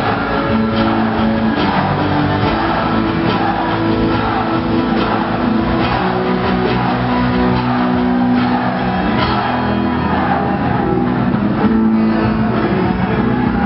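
A live band playing a Gayo song, with electric and acoustic guitars. The music is loud and steady throughout.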